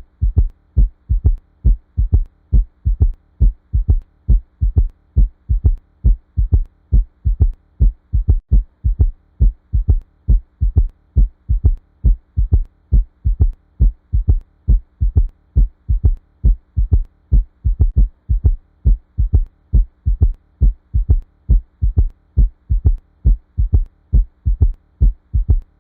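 Heart sounds with a third heart sound (S3 gallop): each beat goes lub-dub-ta, the extra low sound coming just after the second heart sound, as the mitral and tricuspid valves open. The beats repeat at an even rhythm over a steady low hum.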